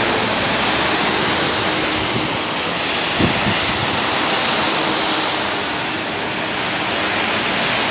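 Steady hiss of traffic on a rain-soaked highway: tyres running through standing water and throwing up spray as cars, trucks and a bus go by.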